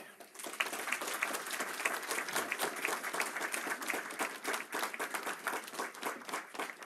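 An audience applauding, many hands clapping together. It starts about half a second in and thins out near the end.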